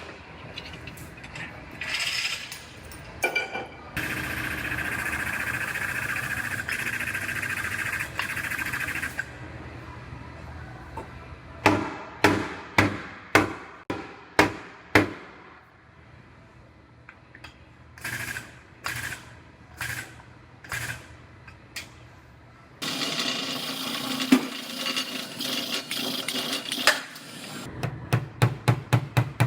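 Body-shop pulling and hammer work on a car's crushed rear body panel: two spells of steady mechanical whirring and series of sharp hammer taps on sheet metal, about six in a row, then a quicker run of taps near the end. The tapping relieves buckles in the quarter panels while the damage is pulled out.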